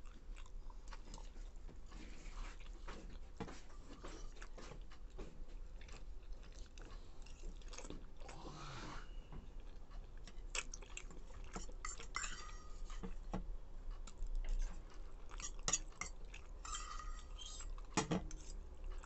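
Close-up chewing of instant noodles, with a metal fork clinking and scraping against a small steel bowl on a steel plate; the clinks get louder and sharper toward the end.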